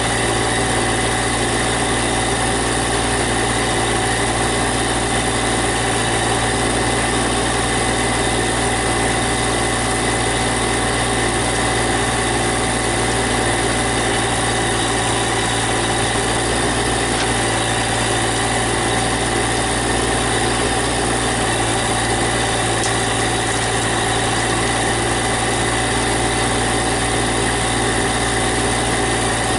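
Massey Ferguson GC1710 compact tractor's diesel engine running steadily at idle, with an even pulsing hum and no change in speed.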